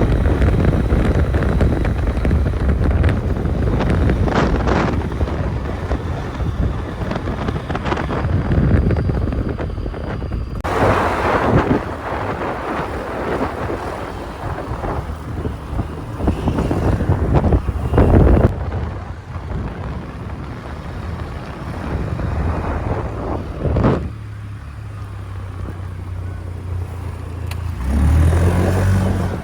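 Wind buffeting the microphone in loud gusts over the running engine of a small motor vehicle while riding. A low, steady engine hum shows through near the end.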